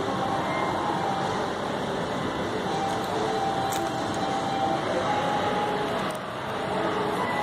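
Steady background hubbub of a large shopping-mall atrium: an even wash of distant crowd and building noise, with faint pitched snatches drifting in and out.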